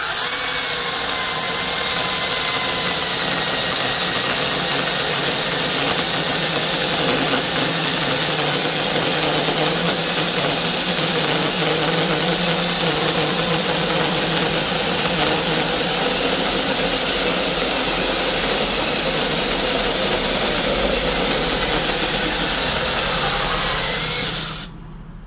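Bei & Hong brushless 6-inch cordless mini chainsaw cutting through wood, its motor and chain running steadily for the whole cut without cutting out, then stopping about a second before the end.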